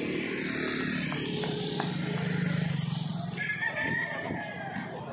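Motorcycle engines running on a busy street, with a short high call about three and a half seconds in.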